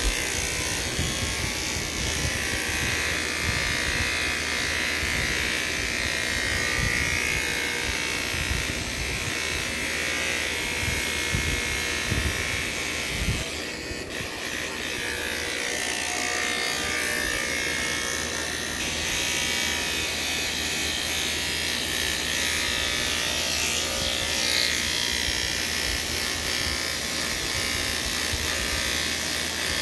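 Electric hair clippers running with a steady buzz while cutting hair, with irregular low bumps from handling.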